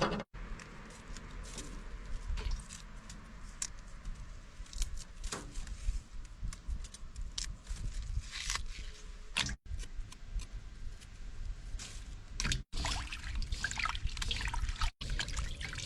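Water splashing and dripping in an irregular string of small splashes and clicks as vegetables are washed by hand in rice-washing water.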